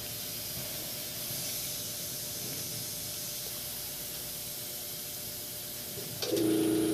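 Compressed air hissing steadily from a small compressor's coiled hose into a motorcycle tubeless tyre whose bead has not yet seated on the spoked rim. About six seconds in, a steady hum starts and the sound gets louder.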